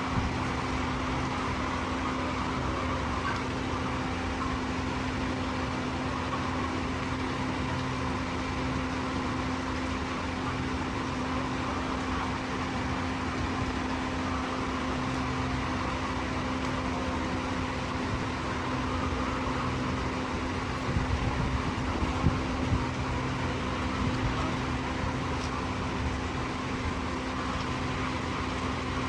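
Steady mechanical hum with a constant low tone, like a running fan, with a few light knocks about 21 to 23 seconds in.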